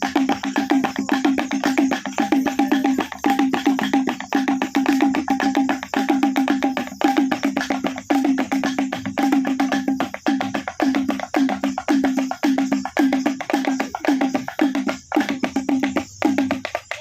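Traditional T'boli music played on pitched percussion: fast, steady strokes, several a second, sounding one clear low note with a higher ring above it.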